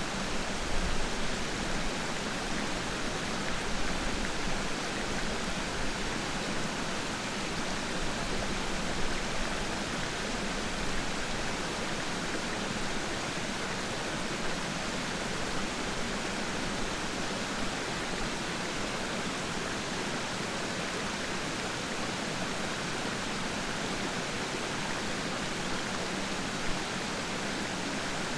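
Steady rush of falling and flowing water at Peiran Falls, an even, unbroken hiss with a few brief louder splashes.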